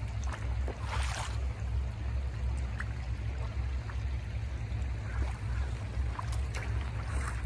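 Shallow spring water trickling over gravel, under a steady low rumble of wind on the microphone, with a few scattered crunches of footsteps on the gravel.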